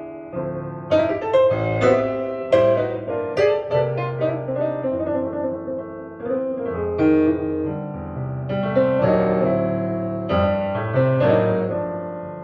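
Solo piano music played back through hi-fi speakers, notes struck in phrases and dying away, the sound fading down near the end.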